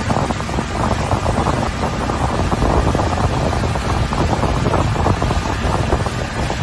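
Wind buffeting the microphone over rushing water on a fast boat ride at sea, a loud, steady rumble that churns without a break.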